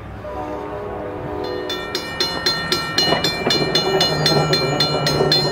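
A train horn sounds a steady chord for about two seconds. Then a railroad crossing bell starts ringing at an even beat, about three strikes a second, over a low locomotive rumble near the end.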